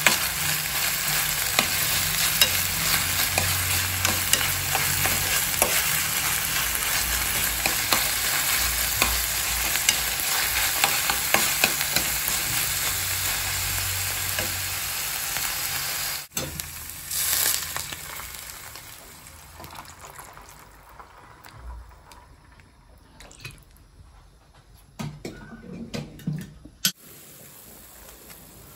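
Chopped meat and onions sizzling in oil in a frying pan while a metal ladle stirs and scrapes them, with many small clicks. After about sixteen seconds the sizzle cuts off abruptly and it turns much quieter, with only a few scattered knocks.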